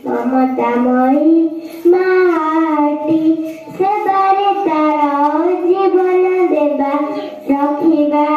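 A young girl singing a patriotic song solo, one voice holding long notes and gliding between them in phrases with short breath pauses.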